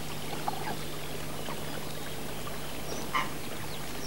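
Shallow water running and trickling steadily, with a low steady hum under it. A brief faint sound comes about half a second in and a slightly louder one a little after three seconds.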